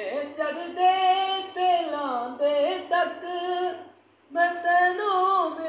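A man singing unaccompanied in a high voice, holding long notes that slide from pitch to pitch, with a short break for breath about four seconds in.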